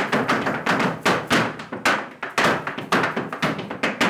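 A rapid, uneven series of knocks and thuds, several a second, each with a short ringing fade.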